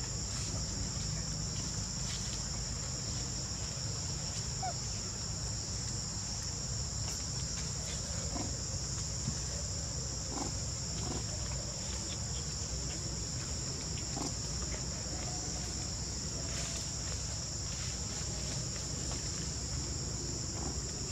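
Steady high-pitched insect chorus, two shrill tones held without a break, over a low rumble with a few faint ticks.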